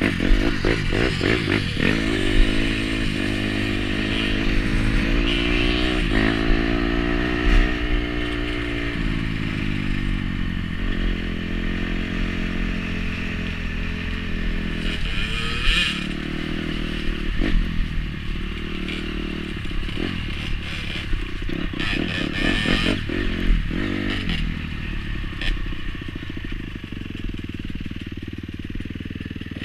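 Dirt bike engine running under way, its note climbing and dropping several times as the rider opens and closes the throttle. Stones and the bike's chassis clatter and knock over the rough gravel track.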